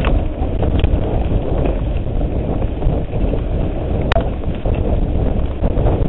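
Mountain bike rolling fast over a dirt trail: heavy wind noise on the microphone over the rumble of the tyres. There are a few sharp clicks, the loudest about four seconds in.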